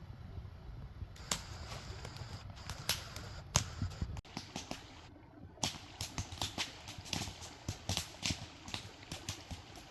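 A rapid, irregular series of sharp knocks, several a second, with a low rumble under the first few seconds.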